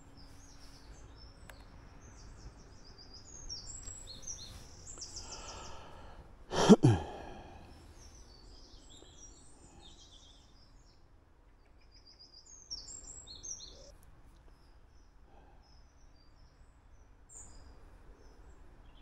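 Small birds chirping and singing in quick high notes on and off throughout. About seven seconds in, a man gives one loud sigh, falling in pitch.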